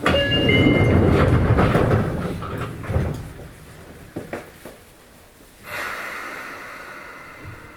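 Sliding passenger doors of a Sotetsu 8000 series commuter car rattling loudly as they move, from an unimproved door mechanism. The rattle comes with short chime tones at the start and ends in a knock about three seconds in. A softer hiss follows from about six seconds in.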